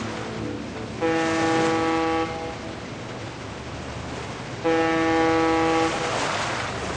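Ship horns sounding two blasts, each a little over a second long, several steady notes sounding together. A rush of water rises near the end.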